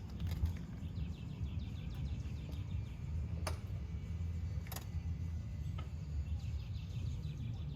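Small birds chirping in quick trills over a steady low hum, with two sharp clicks about three and a half and five seconds in.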